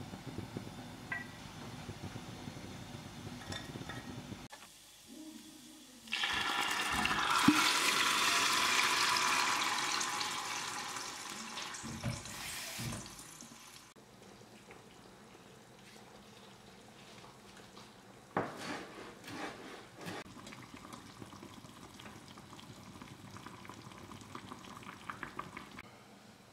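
Food sizzling in a hot pan: a loud hiss starts suddenly a few seconds in, then dies down over several seconds. A few light knocks on the counter follow later.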